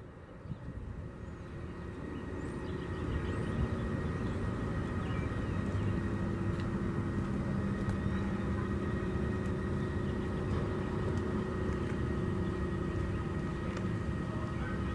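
Steady low engine-like rumble that swells over the first few seconds and then holds steady, with no siren wail.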